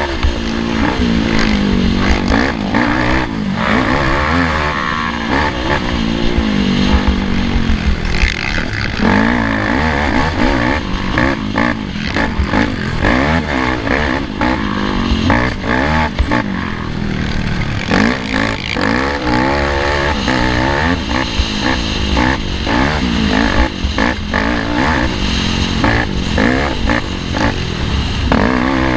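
Race ATV engine heard from on board, revving up and down continuously with throttle and gear changes, with frequent short knocks and clatter from the rough dirt track.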